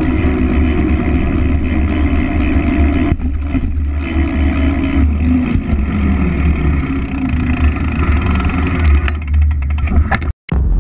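Wind buffeting an action camera's microphone, with a heavy, steady rumble, while a mountain bike is ridden along a paved finish straight. The sound cuts off abruptly near the end.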